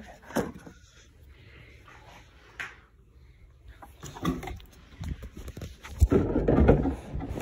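Handling noise: a few short knocks and clatters of plastic toy playset pieces and cardboard being moved, then, about six seconds in, a stretch of low rubbing and bumping as something brushes against the phone's microphone.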